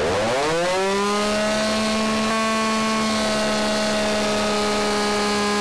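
Ported big-bore Stihl 026 (MS260) two-stroke chainsaw engine running up from low revs to wide-open throttle within about the first second, then holding a steady high pitch under dynamometer load.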